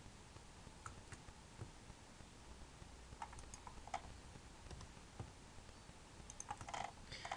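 Faint, scattered clicks of a computer mouse and keyboard over a low hiss, with a quick run of clicks near the end.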